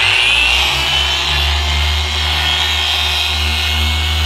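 Small electric detailing polisher with a small foam pad running against a plastic tail-light lens, buffing out micro scratches. Its whine rises over about the first second as it spins up, then holds steady over a low hum.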